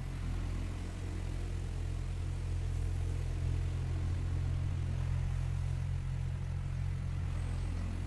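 Tractor engine running steadily as it ploughs a field, heard as a low, even drone.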